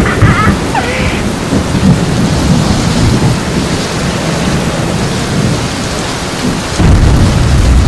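Thunderstorm: steady heavy rain with low rolling thunder, and a louder rumble of thunder starting near the end.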